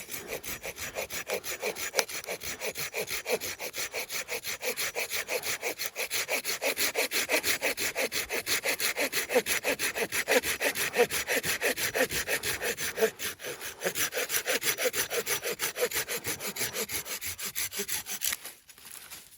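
Hand saw cutting through a firewood log in quick, steady back-and-forth strokes, which stop near the end.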